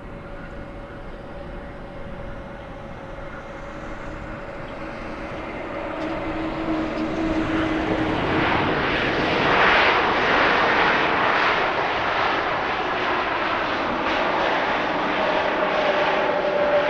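Jet airliner's engines growing louder as it passes close by, peaking about ten seconds in and staying loud, a broad rushing roar with a steady hum running through it.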